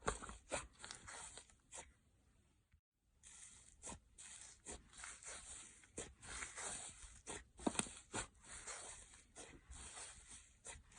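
Slime being squeezed and stretched by hand, giving irregular sticky pops, clicks and crackles. The sound drops out for about a second, about two seconds in.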